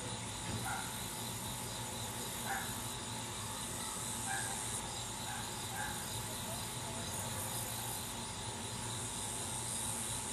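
Outdoor ambience: a steady high hiss of insects that swells and fades, with scattered faint short chirps.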